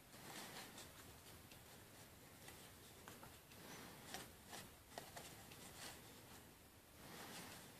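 Faint rustling and soft flicks of paper as the pages of a comic book are turned by hand, several times over.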